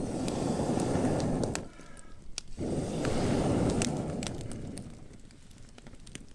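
Two long breaths blown through a telescopic fire-blowing pipe into campfire embers, each a rushing whoosh of about a second and a half, with the wood crackling and popping throughout as the embers flare into flame.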